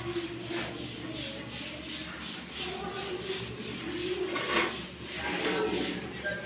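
Large ceramic wall tile being pressed and worked into a bed of combed tile adhesive, rubbing and scraping against the wet mortar and the edges of the neighbouring tiles in repeated short swishes.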